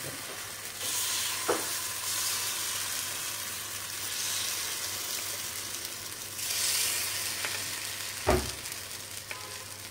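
Suji (semolina) appe batter sizzling as spoonfuls are dropped into the hot oiled cells of an appe pan, the hiss swelling and fading. Two light knocks of the spoon or bowl against the pan, the louder one near the end.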